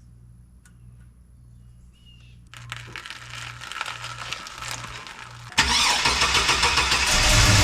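Chevy 1500 pickup's V8 engine started: a sudden loud start about five and a half seconds in, settling into a steady running tone near the end.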